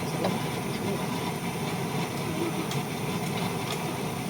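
Samosas frying in hot oil in a pan: a steady sizzle under a low hum, with a few faint pops late on.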